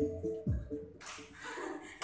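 Dance music playing, which cuts off about half a second in and is followed by a quieter, even noise.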